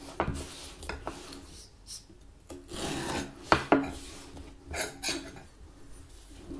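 Hands rubbing and scraping against a cardboard phone box on a wooden tabletop as the box's lid is worked loose, in irregular strokes with two sharp clicks about three and a half seconds in.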